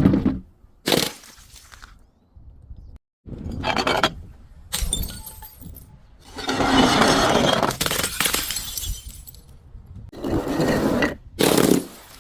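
Glass breaking and crunching in a series of separate loud bursts, with one longer stretch of crunching in the middle.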